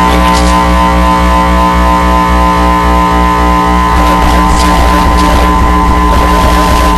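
Music: a loud, dense experimental track of sustained layered tones over a pulsing low drone. A rougher, noisier layer comes in about four seconds in.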